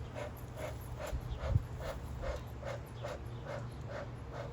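Beekeeper's smoker bellows being pumped over and over, a steady train of puffs about two and a half a second, to get smouldering fuel smoking. A single low thump about a second and a half in.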